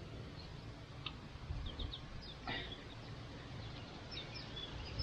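A few faint, short bird chirps over a low, steady background rumble, with a single soft click about halfway through.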